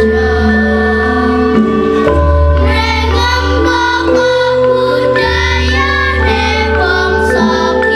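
A children's choir of schoolgirls singing a Javanese-language choral song in unison. Behind them is sustained accompaniment with a deep bass note that changes about every two seconds.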